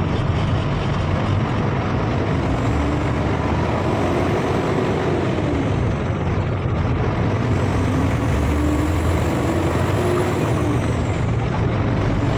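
A large road vehicle, a bus or truck, running steadily with engine drone and road noise. The engine tone wavers a little in pitch.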